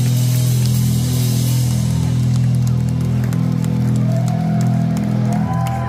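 Heavy metal band playing live with distorted guitars and bass holding a steady low chord that rings out at the end of the song. Higher wavering tones slide in about four seconds in.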